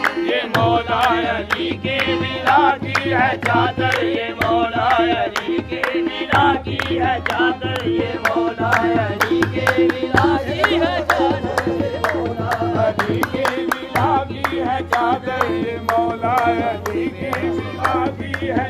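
Qawwali music: a wavering sung melody over harmonium, with a steady tabla beat and sharp rhythmic clicks.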